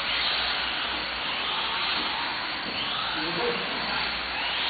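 Small electric motors of 1/18-scale radio-controlled cars whining, the pitch rising and falling as the cars speed up and slow down around the track, over a steady hiss.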